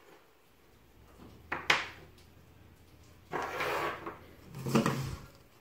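Plywood clamp pieces handled on a wooden workbench: a sharp double knock, then two stretches of scraping and rubbing as the pieces are slid and moved.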